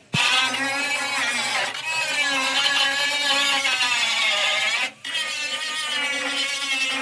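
A power tool running, its whine wavering up and down in pitch over a steady low hum, with a brief break about five seconds in.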